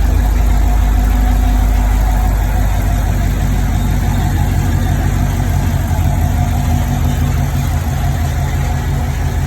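Chevrolet LT1 6.2-litre V8 idling steadily.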